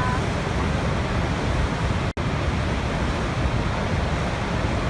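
Niagara Falls: a steady, loud rush of falling water, heaviest in the low range. It drops out for a split second about two seconds in, then carries on unchanged.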